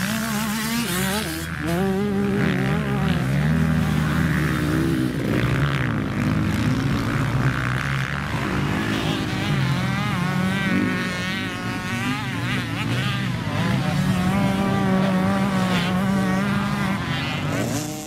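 Several motocross bike engines revving and passing on the track. Their overlapping pitches rise and fall as the riders open and close the throttle.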